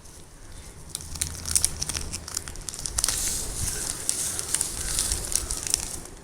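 Plastic packet crinkling and rustling as it is handled, with scattered small clicks at first and a denser rustle from about halfway through.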